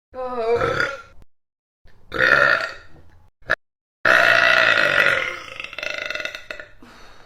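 Loud human burps, three in a row: a short one, a second about two seconds in, then a long drawn-out burp lasting about three seconds near the end. Each starts and stops abruptly.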